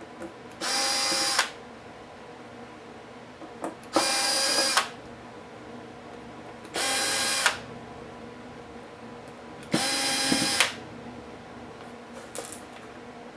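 Small electric screwdriver spinning in four short bursts of under a second each, about three seconds apart, at a steady pitch, as screws are driven out of the laptop. A few faint clicks fall between the bursts.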